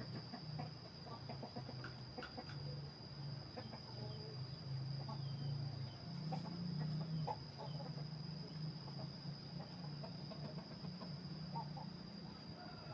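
Chickens clucking, with scattered short bird chirps and a steady high whine behind them.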